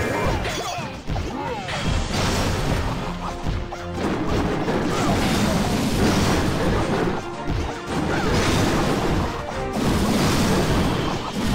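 Loud music with heavy crashing percussion.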